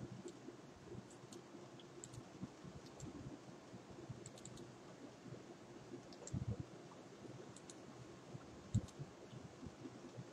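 Faint, scattered clicks of a computer mouse and keyboard, with a couple of dull low knocks, the loudest about nine seconds in.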